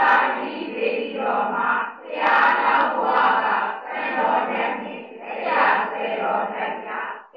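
Many voices reciting aloud in unison: a class chanting a Burmese Abhidhamma text together, in phrases of one to two seconds with brief breaks between them.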